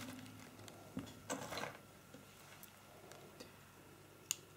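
Faint handling sounds of nuts being glued onto a wreath: a light click about a second in, a short rustle just after, and two more light clicks near the end.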